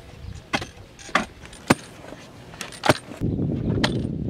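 Shovels chopping into hard, dry dirt while planting holes are dug: a series of sharp metallic strikes, roughly one every half second to a second. A denser low noise comes in during the last second.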